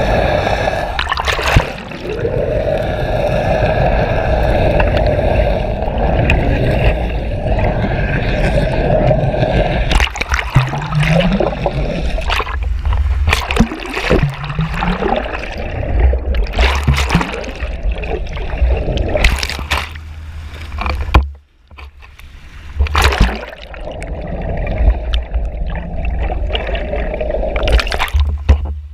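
A boat's engine running steadily, heard muffled through an underwater camera, with water gurgling and many sharp knocks. The hum breaks up in the middle and drops out briefly about three quarters through.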